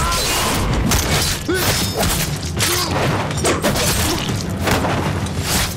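Screen fight: a quick run of punches and impact thuds, with short pained shouts and grunts.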